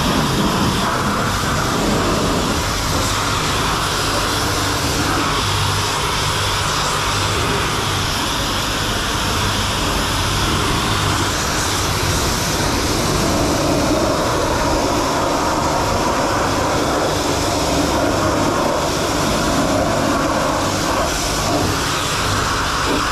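High-pressure car-wash wand spraying water onto a pickup truck's body and wheel well: a loud, steady hiss of spray, with a low hum underneath.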